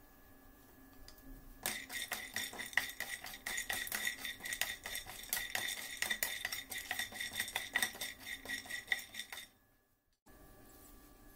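Whole nuts (almonds, cashews, pistachios and walnuts) being stirred in a dry metal frying pan with a wooden spatula while they roast. They make a rapid clatter of nuts knocking and scraping against the pan, which rings with a steady tone. It starts about two seconds in and stops suddenly near the end.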